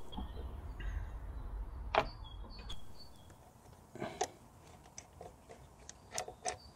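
Hands working on the plastic hose fittings and parts of a car's engine bay: scattered clicks and knocks as parts are handled, the loudest about two seconds in and a few smaller ones near the end. A low rumble runs through the first couple of seconds.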